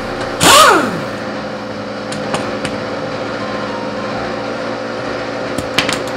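Pneumatic impact wrench run in one short burst on the wheel's lug nuts about half a second in, falling in pitch as it winds down. A few light metal clinks follow.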